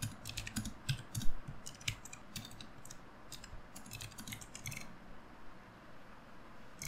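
Typing on a computer keyboard: quick bursts of keystroke clicks that thin out and stop about five seconds in.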